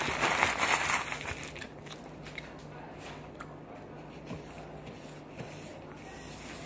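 Close-up eating sounds: a loud rustle for about the first second, then soft scattered mouth clicks and smacks of chewing.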